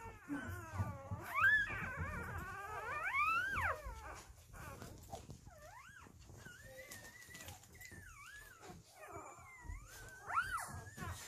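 Two-day-old puppies whining and squealing: high-pitched cries that slide up and down, loud through the first few seconds, then softer, scattered squeaks.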